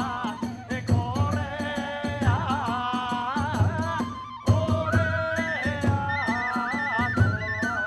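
Kagura hayashi music: a high bamboo transverse flute plays a stepped melody over regular drum beats and the clash of small hand cymbals.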